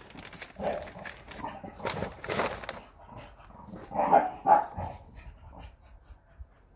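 A dog barking a few times, the loudest two barks close together about four seconds in.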